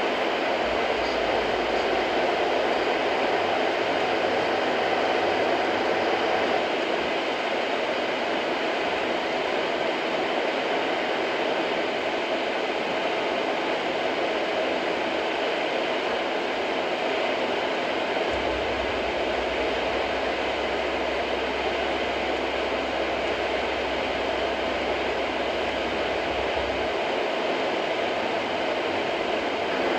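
Steady rushing noise inside a car cabin, an even hiss that holds constant while the car slows and stops at a toll booth.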